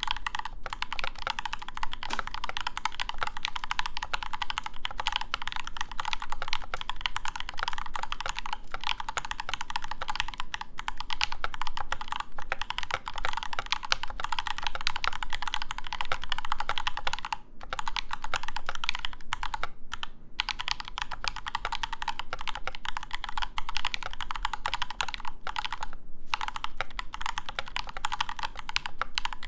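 Idobao ID80 V2 mechanical keyboard with lubed and filmed Durock linear switches being typed on quickly and continuously: a dense stream of keystroke clacks with a few brief pauses in the second half.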